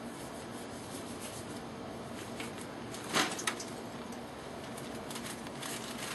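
Steady low background noise, with one brief, sharp handling noise about three seconds in as meat and gear are worked at an open barbecue smoker.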